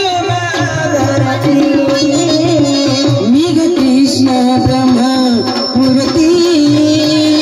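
Live tamasha folk-theatre music: a sustained, gliding melody line over a steady hand-drum rhythm.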